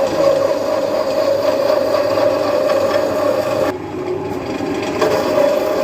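Compressor cutting machine running steadily, cutting around the welded steel shell of an R600 fridge compressor to open it: a constant hum with a scraping, rasping sound over it, the scraping thinning out for about a second past the middle.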